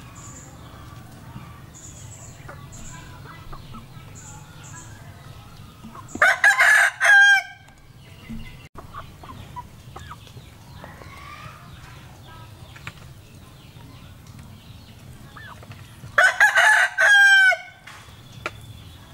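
A rooster crowing twice, each crow about a second and a half long and ending on a long falling note, about ten seconds apart.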